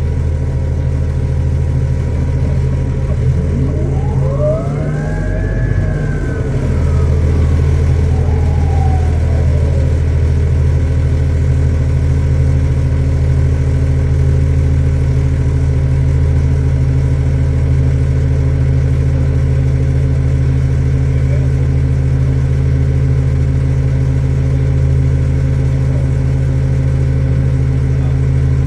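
Orion VII Next Generation hybrid transit bus running with a steady low diesel drone and a thin electric whine from its hybrid drive. Between about three and ten seconds in, the drive whine rises and then falls in pitch. The engine note grows louder about seven seconds in and then holds steady.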